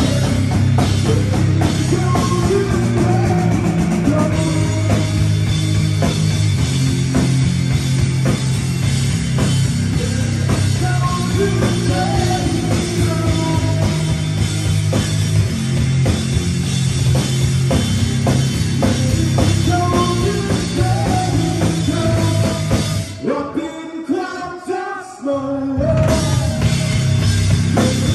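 Rock band playing live and loud: electric bass, drum kit and keyboard with electric guitar. Near the end the bass and drums drop out for about three seconds, leaving a thinner passage, before the full band crashes back in.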